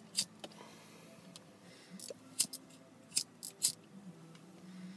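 A lighter clicked repeatedly, about eight sharp clicks at uneven intervals, some in quick pairs, while relighting a tobacco pipe that has gone out.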